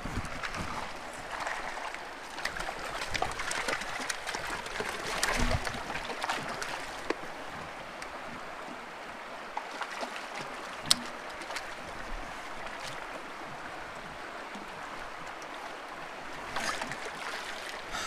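A mountain creek running steadily over rocks. Between about two and seven seconds in come irregular splashes as a hooked cutthroat trout is played and brought to the net. A single sharp click comes about eleven seconds in.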